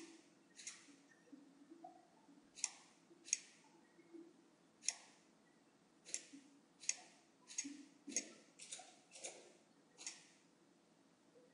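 Faint computer mouse button clicks, about a dozen single clicks at an uneven pace.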